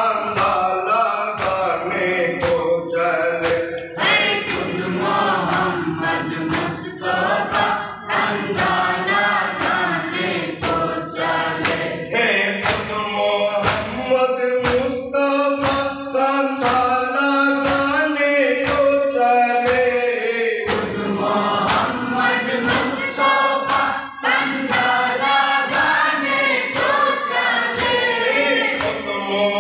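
A group of men chanting a Muharram noha (lament) in chorus through microphones, with a steady beat of hands striking chests (matam) a little faster than one a second.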